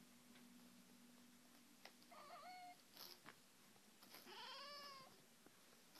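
A house cat meowing quietly twice: a short, wavering meow about two seconds in, then a longer meow that rises and falls in pitch a couple of seconds later.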